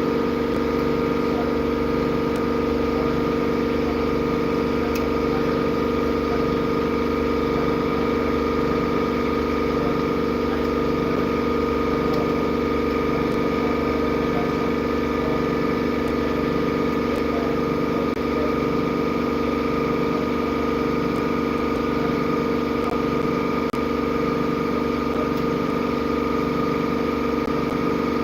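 An engine running at a steady idle, with a slow, even pulse in the low end and a steady whine above it.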